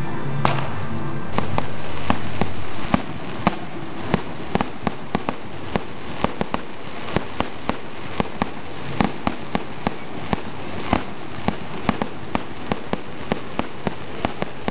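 Fireworks: a ground fountain firework sprays sparks with a steady hiss and sharp, irregular cracks and pops several times a second. For the first three seconds a steady low tone lies under it, then stops abruptly.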